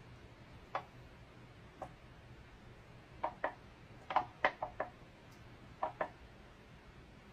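About eleven light ticks and knocks, most of them bunched in the middle, as a freshly poured stretched canvas is handled and shifted on a wire cooling rack.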